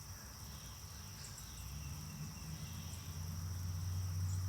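A steady, high-pitched, insect-like trill over a low hum; the hum grows louder about three seconds in.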